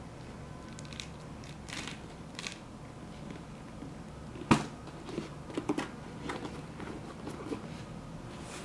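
A pair of glitter-covered Air Jordan 1 high-top sneakers being handled, with light rustles and clicks. One sharper knock comes about four and a half seconds in, then a run of small clicks, over a steady low background hum.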